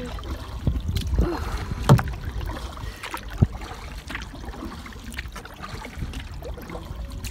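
Solo canoe being paddled against a headwind: paddle strokes in the water with two sharp knocks about a second and a half apart, over a steady low rumble of wind on the microphone.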